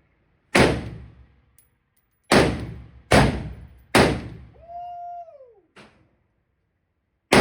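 ARP pistol gunshots: five loud single shots with a decaying echo, the first four in an uneven string over about three and a half seconds, the fifth after a pause of about three seconds, with a fainter shot in between.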